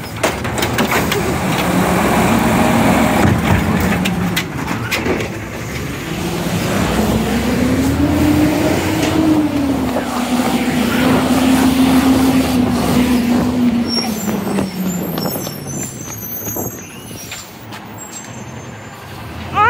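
Automated side-loader garbage truck's engine running; about a third of the way in it revs up, holds high for several seconds, then winds back down.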